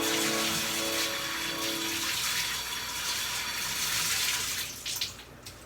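Water running in a steady hiss, under background music that ends about two seconds in; the water cuts off near the end, followed by a few drips.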